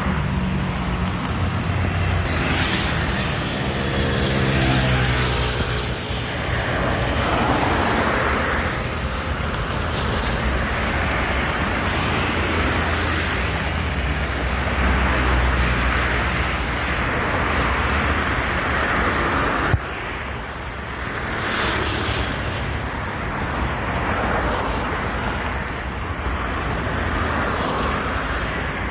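Road traffic: a steady noise of vehicles passing, swelling and fading every few seconds, with one engine-like hum near the start and a sharp click about two-thirds of the way through.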